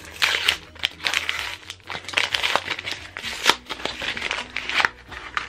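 Paper wrapping crinkling and rustling in irregular bursts as a wrapped parcel is opened by hand.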